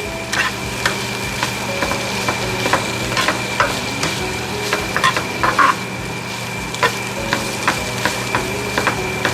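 Chicken pieces sizzling in olive oil in a hot pan as they are stir-fried, with irregular clicks and scrapes from stirring against the pan.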